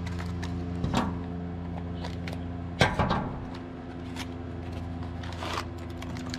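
Rustling and clicking of packaging and small parts being handled while an RC truck's accessories are unpacked. The loudest knock comes just under three seconds in, over a steady low hum.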